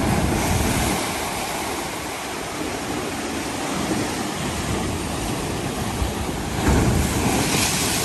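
Mediterranean Sea waves washing in, a steady rush that swells at the start and again near the end.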